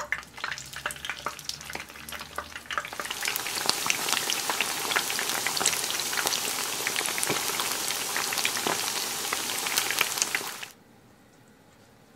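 Potato-starch-coated chicken pieces deep-frying in hot oil: scattered pops and crackles as the pieces go in, then from about three seconds in a dense, loud sizzle full of crackles. The sizzle cuts off suddenly near the end.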